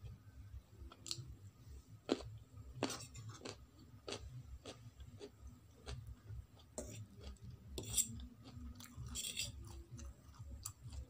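Close-up chewing and crunching of carrot pieces, sharp crunches repeating about twice a second. There are a few clinks and a scrape of a fork on a ceramic plate, the loudest about eight to nine seconds in.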